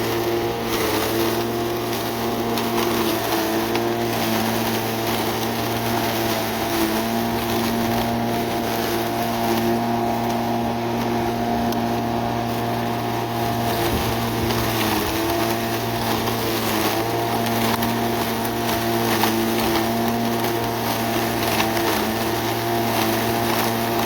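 Sun Joe MJ401E 12-amp electric lawn mower running steadily while cutting grass: a motor and blade hum whose pitch sags briefly now and then under load.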